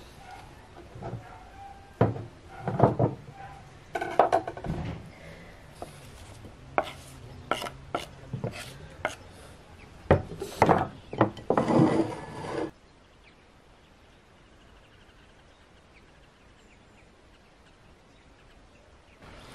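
Kitchen knife chopping onion on a wooden board: irregular knocks and crunches, some in quick runs, stopping suddenly about two-thirds of the way through.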